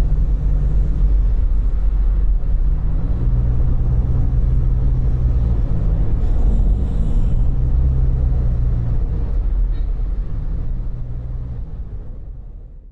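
Car driving along a road, heard from inside the cabin: a steady low rumble of road and engine noise with a low drone, fading out near the end.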